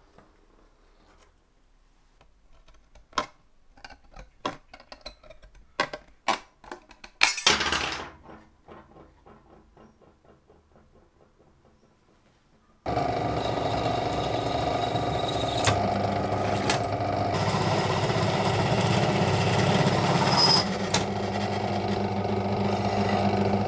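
Scattered small clicks from hand work on thin sheet metal, with a brief loud metallic clatter about seven seconds in. From about thirteen seconds in, a drill press runs steadily, its bit drilling through a thin sheet-metal disc.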